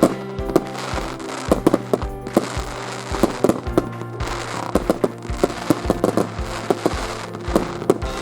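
Fireworks bursting in rapid, irregular succession: many sharp bangs and crackles, several a second, over steady music.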